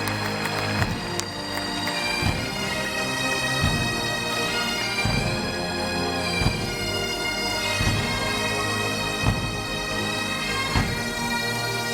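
Great Highland bagpipes playing a tune over their steady drones, with a deep drum stroke about every second and a half.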